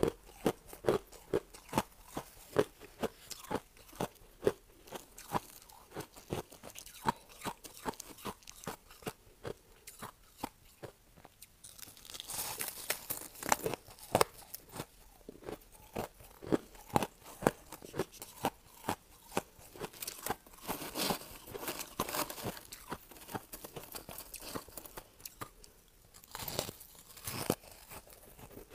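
Crushed ice being bitten and chewed, a steady run of hard crunches at about two a second. Denser, crisper spells of crunching come around the middle and again later on.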